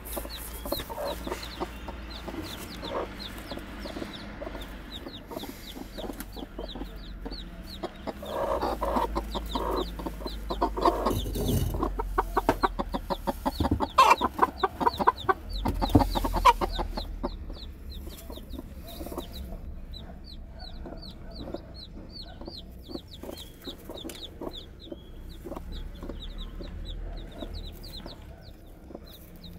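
Newly hatched chicks peeping in short, high, rapidly repeated chirps, while the broody hens brooding them cluck. The hens' clucking is loudest from about a third of the way in to just past halfway, then dies down, leaving mostly the chicks' peeps.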